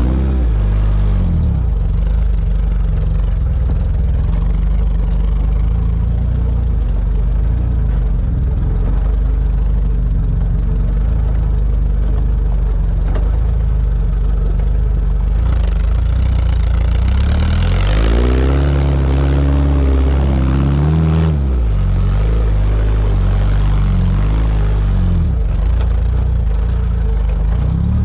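Sporting trials car's engine running at low revs under load as it crawls over a steep grassy slope, revving up and back down about two-thirds of the way through.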